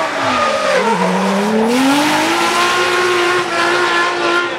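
Drift car engine held at high revs while sliding sideways. The pitch dips in the first second, climbs back and then holds steady, over the hiss and squeal of spinning, sliding rear tyres.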